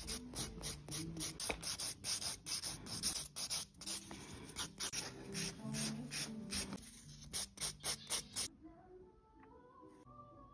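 Nail file rasping against a long fingernail in quick back-and-forth strokes, about three strokes a second. The filing stops about eight and a half seconds in.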